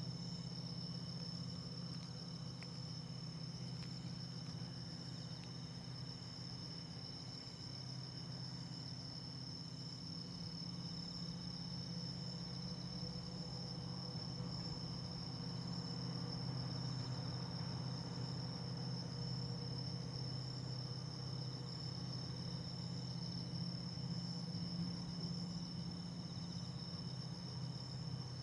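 Crickets or other night insects trilling steadily and high, over a low, steady hum of a Boeing 767's jet engines at taxi power, which grows a little louder in the second half as the jet turns toward the runway.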